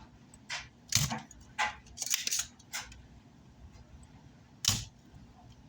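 A handful of sharp clicks and knocks, like tools and parts being handled and set down on a workbench, the loudest about a second in and near five seconds in.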